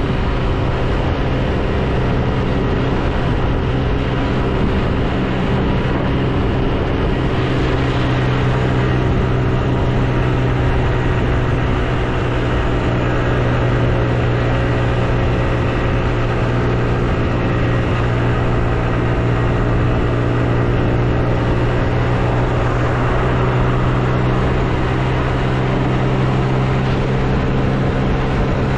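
Car driving at a steady speed: a steady engine hum with tyre and road noise that does not rise or fall.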